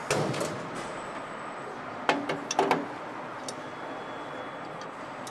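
Engine assembly line ambience: steady machinery noise, with sharp metallic clanks as parts are handled on a steel workbench, one right at the start and a quick cluster about two seconds in.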